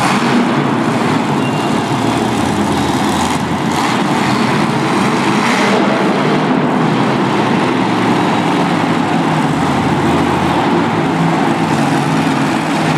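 Monster truck's supercharged V8 engine running hard, a loud continuous din as the truck drives across the dirt arena floor and up a ramp.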